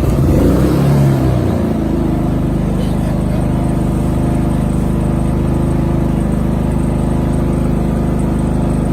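Generac iQ3500 inverter generator's single-cylinder engine just after starting, its pitch shifting unevenly for the first couple of seconds, then settling into a steady, even run in normal (non-economy) mode.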